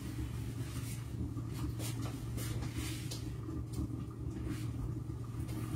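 A steady low hum with faint, scattered clicks and light knocks over it.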